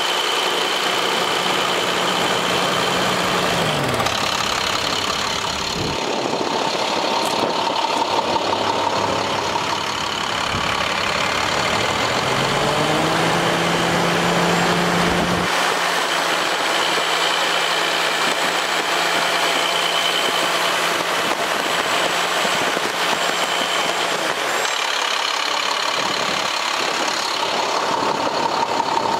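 International MaxxForce DT diesel engine of a 2009 International 4300 truck running steadily. Its pitch drops a few seconds in and climbs back up around the middle, with a faint high whine over the engine note.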